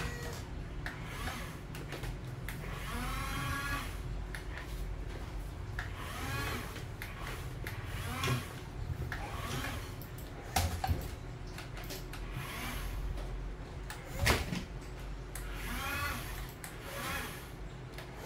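Electric motors of a remote-control toy excavator whining, rising and falling in pitch in short runs as the boom, arm and turntable move. A few sharp knocks from toy cars being struck and tipped over, the loudest about fourteen seconds in.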